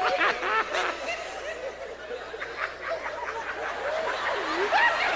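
Many people in a large audience laughing uncontrollably at once: overlapping bursts of laughter and high whoops, growing louder near the end.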